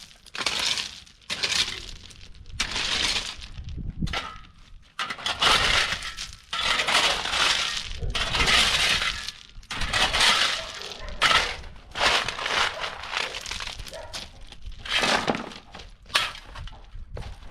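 Crushed-stone ballast clattering and crunching in a run of irregular bursts as the loose stones are tipped and spread.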